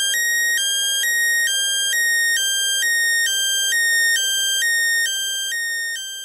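Homemade 556-timer siren circuit sounding through its small speaker: a buzzy electronic two-tone warble that switches between a higher and a lower pitch about every third of a second, growing quieter near the end.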